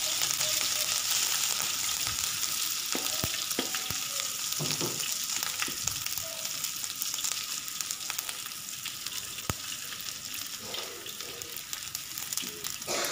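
Ginger paste, green chilies and garlic sizzling in hot oil in a metal wok, stirred with a metal spoon that scrapes and taps on the pan now and then. The sizzle slowly dies down.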